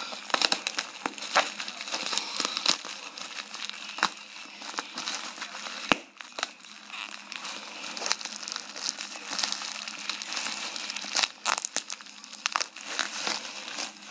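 Bubble wrap crinkling and crackling as a taped, bubble-wrapped item is unwrapped by hand, an irregular rustle broken by a few sharp clicks.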